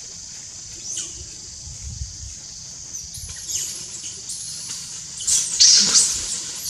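Baby monkey crying in short high-pitched squeals while being handled roughly by an adult, the cries loudest and most sustained about five to six seconds in, over a steady high-pitched drone.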